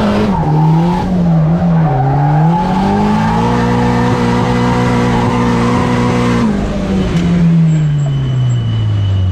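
Turbocharged SR20DET inline-four of a Nissan Silvia drift car, heard from inside the cabin, with tyres skidding. The revs rise and waver, then hold steady and high for about three seconds. About six and a half seconds in, the tyre noise stops and the revs fall away steadily.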